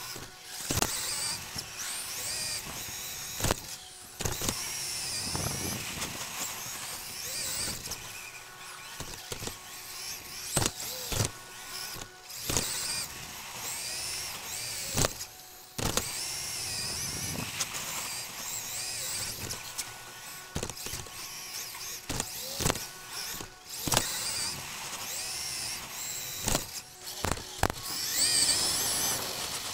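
Xray XB2 2WD electric buggy's 13.5-turn brushless motor and gear drivetrain whining, rising and falling in pitch over and over as it accelerates and brakes around the track. Sharp knocks and clatters come throughout from bumps, landings and hits.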